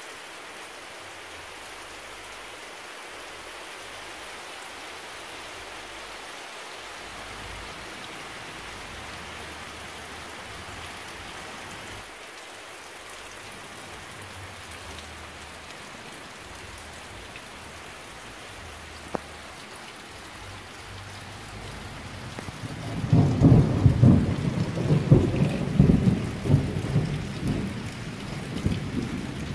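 Steady rain falling, then about three quarters of the way in a long rolling rumble of thunder sets in, swelling and easing unevenly and much louder than the rain.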